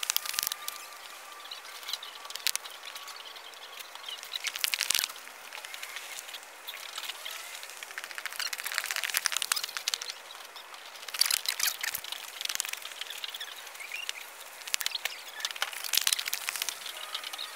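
Clusters of sharp crackling clicks, a few seconds apart, over a faint hiss.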